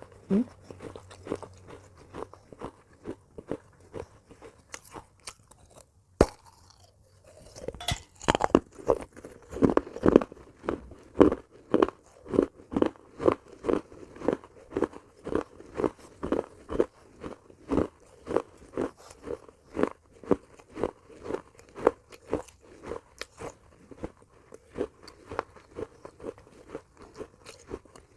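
Close-miked crunching of baked clay pot pieces being bitten and chewed. There is a single sharp bite-snap about six seconds in, followed by steady chewing at about two gritty crunches a second.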